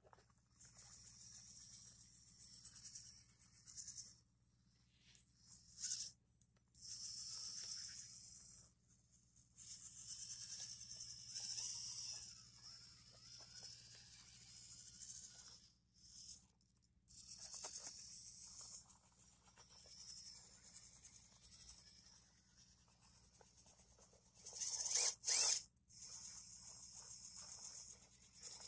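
Electric RC rock crawler's motor and gearing whining high in stop-start bursts as it is driven up steep rock, loudest in one burst about three-quarters of the way through.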